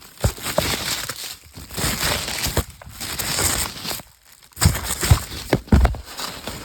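Packing material crinkling and rustling while a heavy item is worked out of a cardboard box, with irregular knocks and bumps. The loudest bumps come a little under 5 s and about 6 s in.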